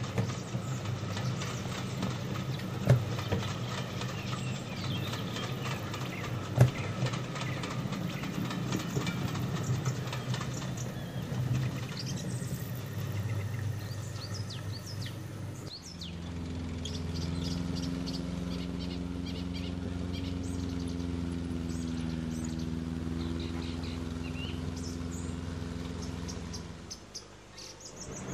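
Recorded railway sound of a train rolling past, with a few sharp clicks and birds chirping. About halfway through it changes abruptly to a steady low droning hum that stops about a second before the end.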